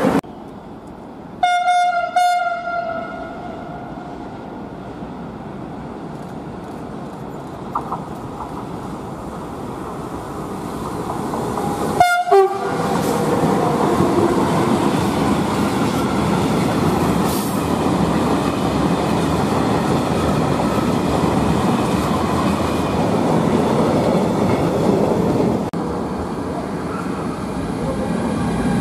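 Freight trains passing through a station. A train horn sounds once, about a second long, about a second and a half in, and again briefly with a slightly falling pitch about twelve seconds in. A diesel-hauled freight train of open wagons then rolls past with steady wheel and engine noise.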